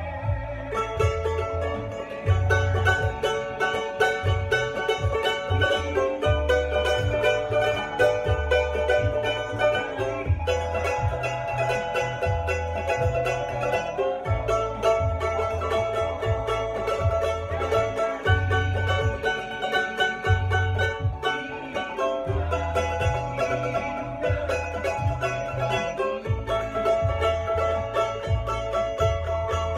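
Tahitian ukulele strummed fast and continuously, with a bright, banjo-like tone. The chords change every second or two as it works through the song's progression in A, including F-sharp minor.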